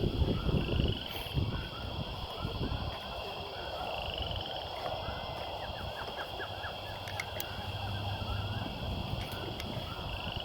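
Outdoor chorus of many small animal calls: short chirps repeating throughout over a steady high buzz, with a rising call every few seconds. Low rumbling handling or wind noise on the microphone in the first second or so.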